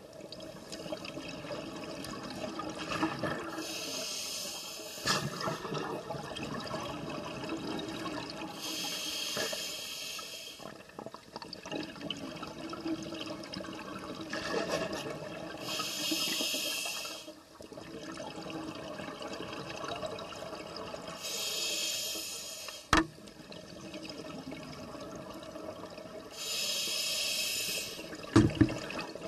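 Scuba diver breathing through a regulator underwater: a hissing inhale about every five to six seconds, with bubbling exhalations between them. A sharp click comes about two-thirds of the way in and twice more near the end.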